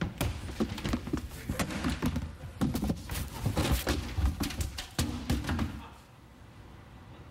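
Rummaging under a desk: a string of knocks, thuds and rustling as objects such as a binder are handled and pulled out, stopping about six seconds in.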